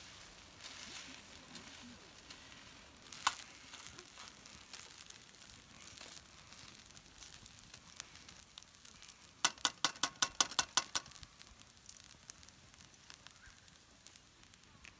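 Rice sizzling in a black metal pan over a wood fire while metal tongs break up the crisp browned crust (okoge) and stir it through the rice. A single sharp click about three seconds in, and a quick run of about ten sharp clicks a little past halfway, the tongs working against the pan.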